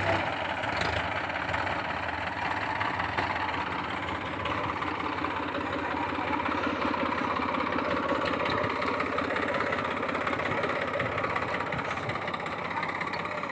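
Farm tractor's diesel engine running steadily, low and even, with no change in speed.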